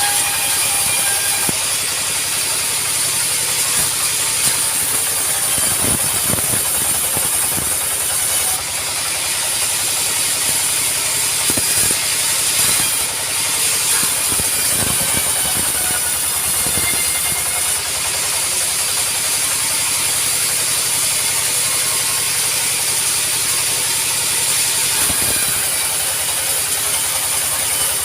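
Sawmill machinery running steadily, a loud hissing mechanical noise with scattered short knocks.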